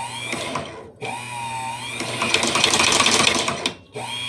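A hand-crank cobbler sewing machine driven by a small domestic sewing-machine motor through a 3D-printer-filament belt, run in loud bursts on a motor with no speed control. A short burst comes first, then a run of about three seconds in which the motor's whine rises as it spins up and the mechanism clatters rapidly. It cuts out and starts again near the end.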